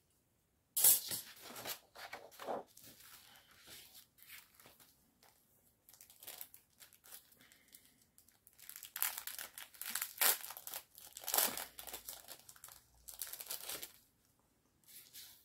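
Packaging of a craft cutting-die set handled and opened by hand: crinkly rustling in irregular bursts, busiest about a second in and again from about nine to fourteen seconds.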